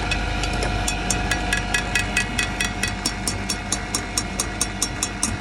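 Rapid, even clicking or tapping at about five a second, plain from about a second in and stopping near the end, over a steady engine-like hum.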